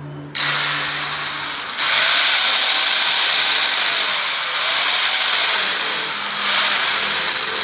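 Electric angle grinder with an abrasive disc switching on, then grinding a splined steel shaft held in a lathe chuck. The noise jumps louder once the disc bites into the metal, about two seconds in, and eases off briefly twice.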